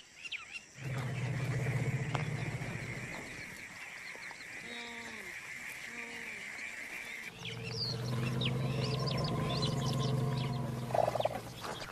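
African elephants rumbling: two long, low, steady rumbles, the first starting about a second in and the second about two-thirds of the way through, with birds chirping behind the second.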